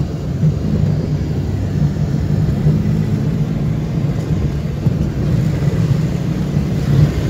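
Steady low rumble of a car driving, heard inside its cabin: road and engine noise with no distinct events.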